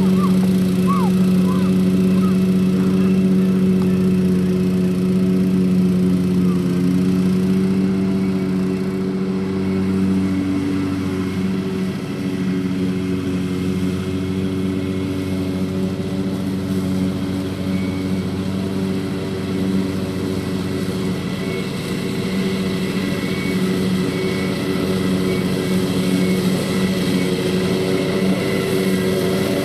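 Engine of a BCS 749E walk-behind tractor running steadily with a 38-inch finish mower, its tone changing slightly about ten seconds in.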